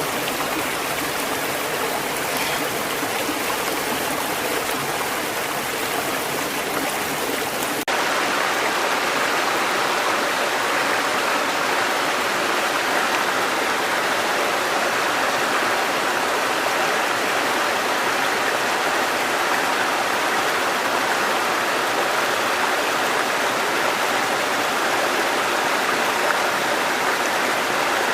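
Rushing river water running steadily. About eight seconds in it cuts abruptly to another stretch of rushing water, a little louder and fuller in the middle range.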